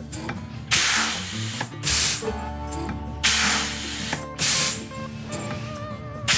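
Air-driven 30X strut pump cycling on shop air while it compresses nitrogen toward 2,500 PSI. Its air exhaust gives about four sharp hisses, roughly one a second.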